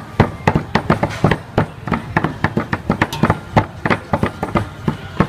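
Two cleavers chopping raw pork into mince on thick wooden chopping blocks: quick, uneven knocks, about five a second.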